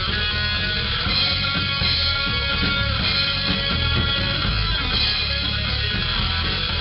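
Rock music: a cover song played on guitar with drums, running steadily at full level.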